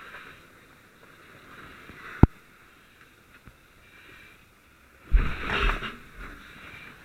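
Firefighter's gear knocking and rubbing against a helmet camera: one sharp knock about two seconds in, then about a second of loud rustling and scraping close to the microphone near the end, over a faint steady hiss.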